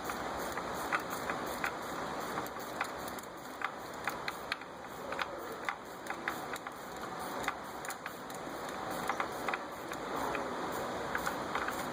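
Ratchet and socket clicking in short irregular runs as a new spark plug is threaded into the cylinder head.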